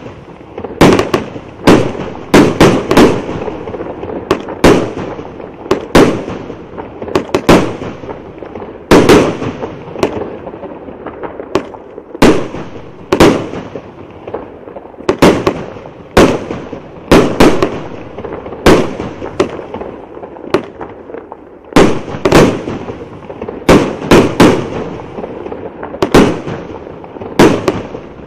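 A 36-shot, 1.2-inch fireworks cake firing its aerial shells in steady succession: sharp bangs about once a second, many coming in close pairs, each trailing off briefly.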